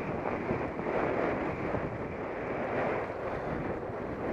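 Wind rushing over the microphone of a camera on a moving bicycle: a steady, even noise.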